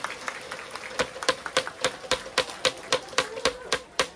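Sharp claps close to the microphone in a quick steady rhythm, about three or four a second, starting about a second in, over faint crowd noise in the stands.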